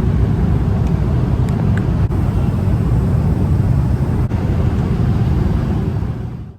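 Steady low vehicle rumble that fades out just before the end.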